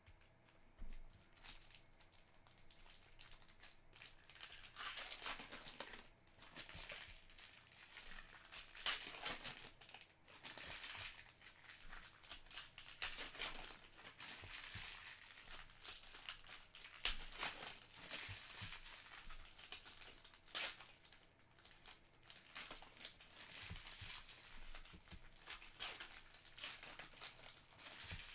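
Foil trading-card pack wrappers crinkling and crumpling as hands tear them open and handle them. The crackling runs on throughout, with many sharp crinkles.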